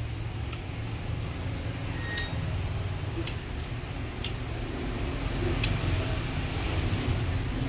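A steady low background hum, with a few light clicks as fresh vegetables are handled on the table.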